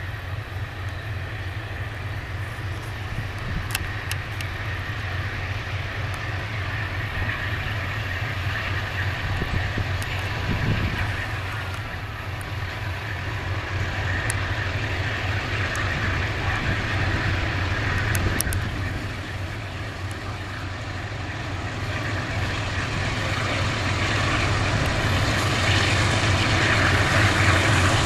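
Freight train hauled by diesel-electric locomotives approaching: a steady low engine rumble that grows louder as it nears, with a few sharp clicks along the way.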